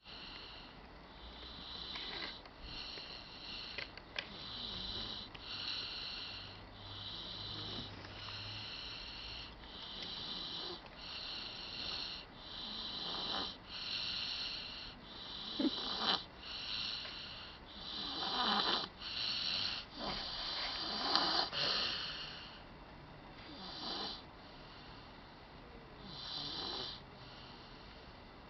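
A baby snoring, breathing in a quick even rhythm of about one breath a second, with several louder snores, most of them past the middle.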